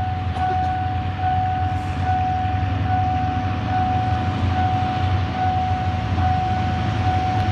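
Level-crossing warning bell ringing in a steady, even beat, about one ring every 0.8 s, to warn of an approaching train. Underneath is a steady low rumble from engines, the approaching diesel train among them.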